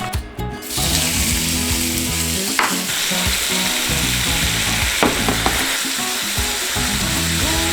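Food sizzling in a hot frying pan, starting under a second in and growing stronger about three seconds in, with background music playing underneath.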